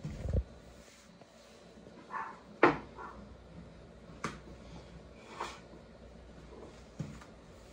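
A dull thump, then a few sharp knocks, the loudest about two and a half seconds in, with soft brushing sounds between them: a rolling pin knocking and sliding as stacked baklava dough sheets are rolled out by hand.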